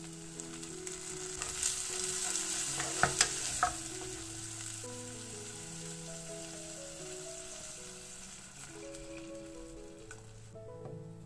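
Corn kernels dropping into a hot pan of onions fried in butter and sizzling, with a few sharp clicks about three seconds in; the sizzle quietens once milk is poured in. Soft instrumental background music plays throughout.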